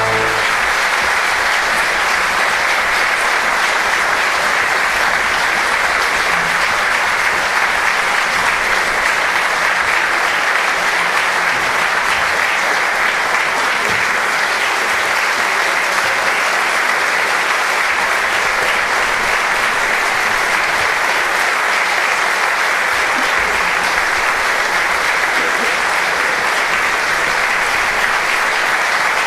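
Theatre audience applauding steadily through an opera curtain call. The last held chord of the music cuts off just as the applause takes over.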